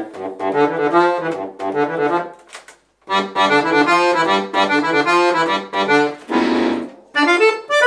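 Chromatic button accordion played in a rhythmic passage of chords over low bass notes, breaking off briefly about three seconds in and again near the end.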